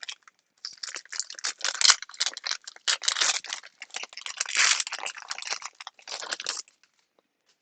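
Trading cards and their pack wrapper being handled: dense rustling, crinkling and small clicks for about six seconds, stopping near the end.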